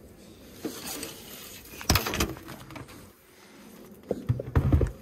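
Knocks and thumps of plastic beehive parts being handled: one sharp knock about two seconds in and a cluster of heavier thumps near the end.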